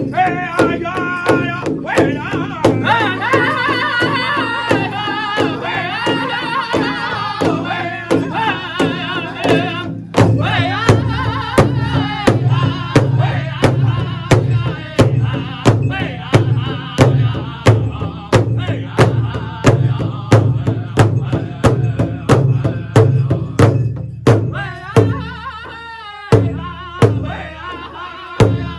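Pow wow drum group: several players striking a big drum in a steady beat while the singers sing high, with a short break about ten seconds in. Near the end the strokes go softer for a moment, then the full beat comes back.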